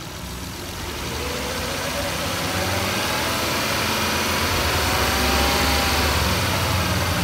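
Volvo V70's engine revving up from idle over the first two or three seconds, then held steady at raised speed, about 3000 rpm.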